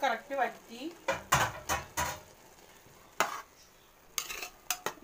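A utensil stirring cooked rice in a metal pot, with a scattering of short scrapes and clinks against the pot.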